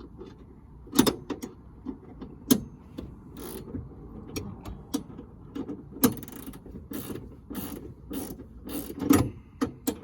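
Hand ratchet wrench clicking in short, irregular runs of strokes as a harness bar mounting bolt is backed out, with a few louder knocks among the clicks.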